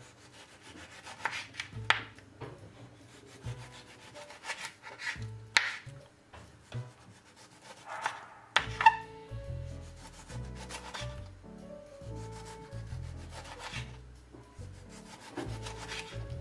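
Kitchen knife slicing through ripe tomatoes and knocking on a wooden cutting board: a series of short, sharp cuts at irregular intervals. Background music with a low bass line plays underneath, stronger from about halfway through.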